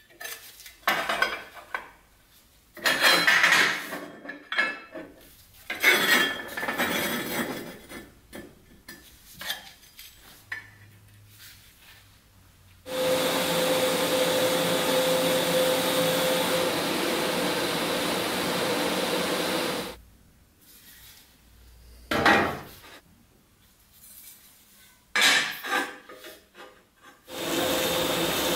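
Cut pieces of steel square tubing clinking and scraping against each other and a steel welding table. About thirteen seconds in, an electric welding arc runs steadily with a hiss and hum for about seven seconds. After more clinks of steel, the arc starts again near the end.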